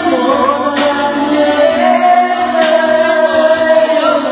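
A man singing live into a microphone over a backing track, amplified through the venue's sound system, holding long wavering notes.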